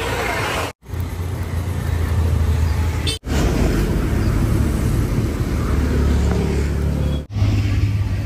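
Steady low outdoor rumble with no clear single source, cut off abruptly for an instant three times.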